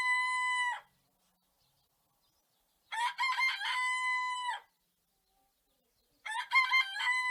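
A rooster crowing cock-a-doodle-doo three times, each crow ending on a long held note. The first crow is finishing as the sound begins, a full crow comes about three seconds in, and another starts about six seconds in, with silence between them.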